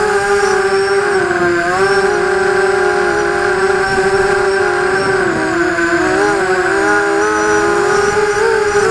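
Brushless motors and propellers of an ImmersionRC Vortex FPV racing quadcopter, heard through its onboard camera: a loud, steady whine of several stacked tones whose pitch wavers up and down as the throttle changes.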